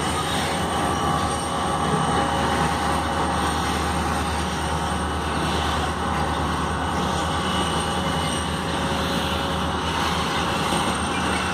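Freight train of boxcars rolling steadily past, a continuous rumble of steel wheels on the rails.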